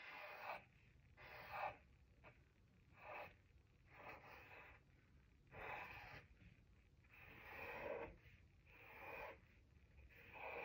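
Sharpie permanent marker drawing lines on paper: faint, short scratchy strokes, about eight of them, each roughly half a second long.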